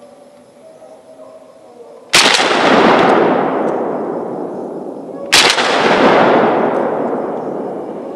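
Two 12-gauge shotgun shots from an MP-155 Profi semi-automatic, about three seconds apart, each followed by a long echo rolling off through the forest, fired at a hare that is brought down.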